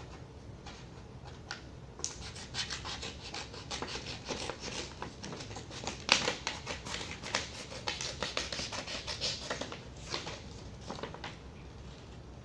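A sheet of construction paper rustling and crackling as it is handled, in quick irregular crackles from about two seconds in until shortly before the end.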